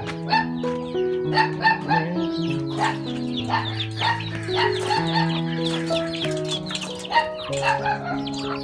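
Background music with held notes changing every second or so, and young chickens clucking and peeping throughout.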